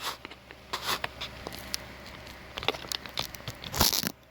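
Handling noise: scattered light clicks and short rustles, with the loudest rustle near the end.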